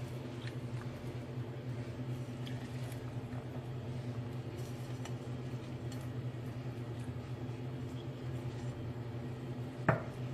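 Steady low electrical hum of a running kitchen appliance, with faint light ticks as diced tomato and pepper are scattered onto the pizza, and one short sharper sound near the end.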